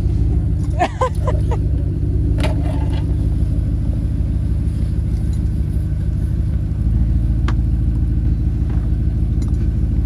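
A vehicle engine idling close by: a steady low rumble that grows a little louder about seven seconds in.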